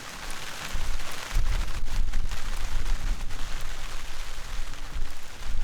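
Rain falling steadily on the forest, with a loud low rumble running under it from about a second in.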